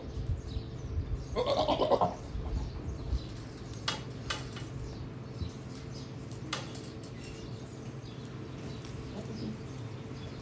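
A goat bleats once, loudly, about a second and a half in. A few sharp clicks follow, over a steady low hum.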